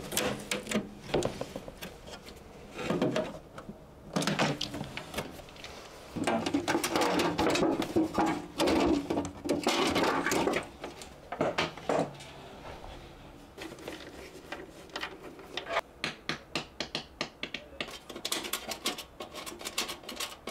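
Plastic air fryer housing being worked apart by hand: irregular clicks, knocks and scraping as its fasteners and casing are pried at, with a longer stretch of scraping midway and a quick run of clicks near the end.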